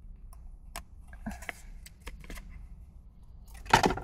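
Plastic and cardboard retail packaging being pulled apart by hand to free a phone case: scattered small clicks and crinkles, then a loud sudden crackle near the end as the case comes free.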